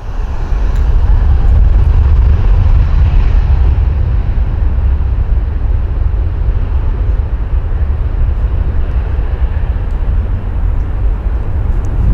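Jet airliner's engines spooled up to takeoff power, a loud, steady, deep rumble that builds about half a second in.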